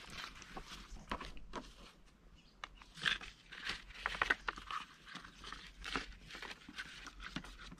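Dry rice paper sheets crackling and crinkling as they are handled and peeled from the stack: irregular small crisp crackles, a few louder ones about three seconds in and around six seconds.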